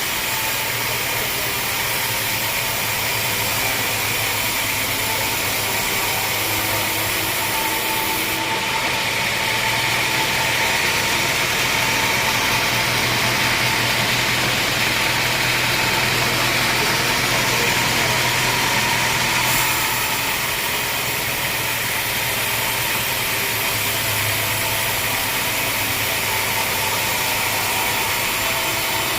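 Sawmill machinery running steadily, a continuous engine-like noise with a low hum. The high hiss thins out from about 8 seconds in and comes back at about 19 seconds.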